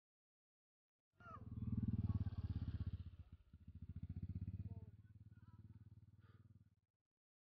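Motorcycle engine running at low speed, swelling and fading twice, with faint voices behind it; it starts about a second in and cuts off abruptly near the end.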